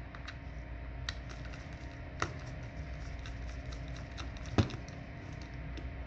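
Small precision screwdriver working the last screw out of a Samsung Galaxy A10e's midframe: light irregular clicking and ticking of the driver tip against the screw and frame, with sharper clicks about one, two and four and a half seconds in, the last the loudest.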